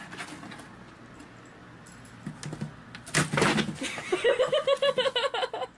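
A short thump and rustle of cardboard about three seconds in as a kitten gets onto a cardboard box, then a person giggling in quick rapid bursts.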